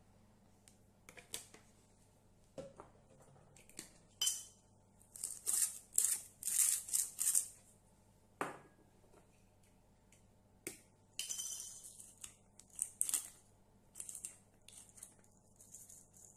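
A few light clicks, then a hand-twisted spice grinder crunching in repeated short bursts as it grinds black peppercorns.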